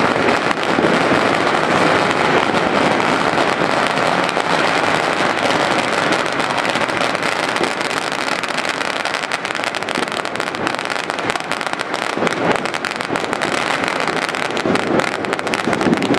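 Dense, unbroken crackle of many firecrackers and fireworks going off at once, steady in loudness throughout.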